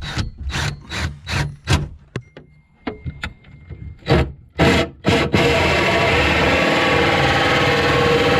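A quick run of short rubbing or scraping strokes, about three a second. Then, about five seconds in, a power drill starts up and runs steadily with a held whine, boring a hose hole through the boat's fibreglass locker wall.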